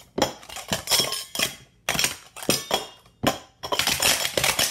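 Metal sport-stacking cups (Super Stacks) clanking against each other and on the mat in a rapid, really loud series of metallic strikes as they are stacked up into pyramids and swept back down in a 3-6-3 stack. The clanks come thickest in the last second as the cups are brought down.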